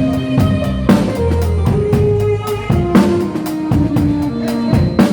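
A band playing during a sound check: drum kit strikes with bass drum and snare, over held low pitched notes that change every half second or so.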